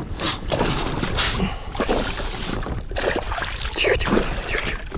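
A hooked pike thrashing at the surface beside an inflatable boat while being played on a spinning rod: irregular splashes and sloshing water.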